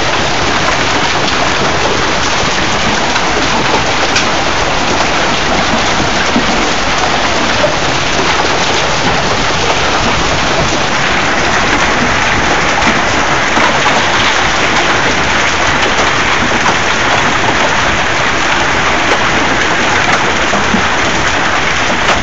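Hailstones falling steadily and hard, a dense continuous patter of countless small hits.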